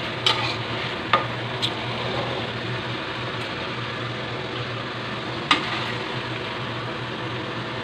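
Sliced pork offal and ginger sizzling in plenty of oil in a wok, stirred with a metal spatula, with a few sharp clacks of the spatula against the wok.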